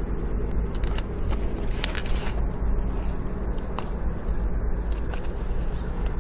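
Plastic gift cards and paper being handled and shuffled, with scattered clicks and a brief rustling scrape about two seconds in, over a steady low rumble inside a car.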